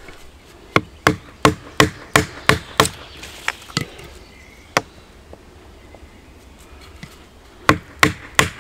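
Wooden baton knocking on the spine of a knife driven into a small stick of wood, splitting it for kindling (batoning): a run of sharp wooden knocks about three a second, one more after a short gap, then a pause and a few more knocks near the end.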